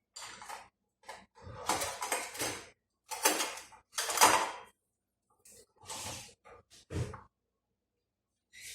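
Cookware and utensils clattering and scraping in a series of short bursts, with dead silence between them.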